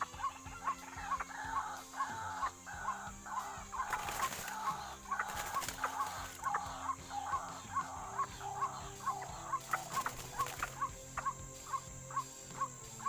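White-breasted waterhen (ruak-ruak) calling with repeated clucking notes, which thin out near the end. Background music runs under it, with an even beat of about three ticks a second.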